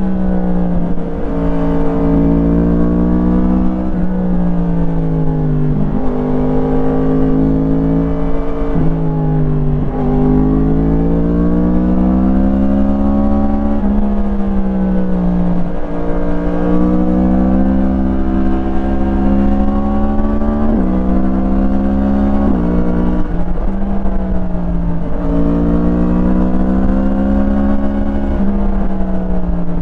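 Yamaha MT-10's crossplane inline-four engine through an Akrapovič slip-on exhaust, heard onboard while riding. The revs rise and fall over and over as the rider goes on and off the throttle through corners, with sudden pitch jumps at about eight gear changes. A steady low rumble of wind and road noise runs beneath.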